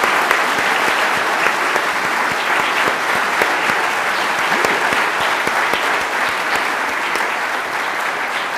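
Audience applauding, many people clapping steadily, easing off slightly near the end.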